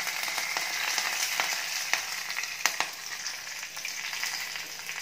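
Hot oil sizzling in a kadai with mustard seeds, whole spices and freshly added curry leaves, a steady frying hiss broken by a few sharp pops and crackles.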